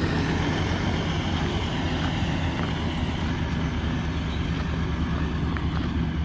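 Large diesel engine idling steadily, a low even hum that neither rises nor falls.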